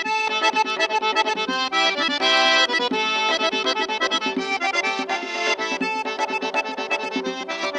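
Accordion music: a quick melody of rapidly changing notes with sustained chords underneath.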